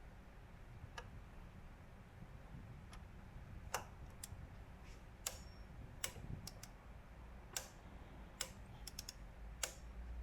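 Faint, irregular clicks and taps from a torque wrench and socket being worked on engine-mount bracket bolts as they are turned a further 90 degrees, over a low steady hum.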